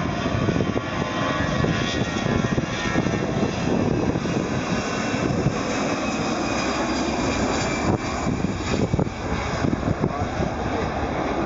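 Jet airliner engines running, with a faint whine in the first few seconds, under heavy wind buffeting on the microphone.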